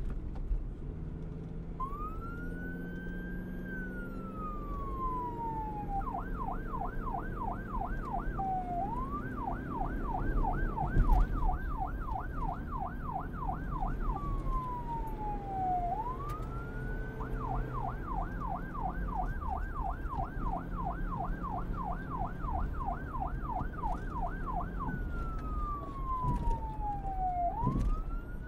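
Police car siren that starts about two seconds in and keeps switching between a slow rising-and-falling wail and a fast yelp. Underneath it runs the low rumble of the car's engine and tyres at speed.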